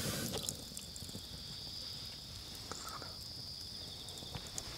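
Crickets chirring in a steady, continuous high trill, with a few faint clicks.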